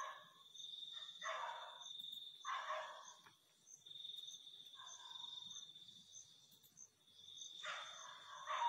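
Crickets trilling steadily in one continuous high note, with a fainter insect chirping at a regular pace above it. A few short, duller sounds come and go lower down.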